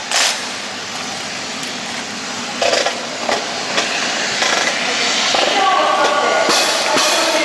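Outdoor crowd noise: a steady wash of chatter and voices, with a few sudden louder bursts, and music beginning to come in a little over five seconds in.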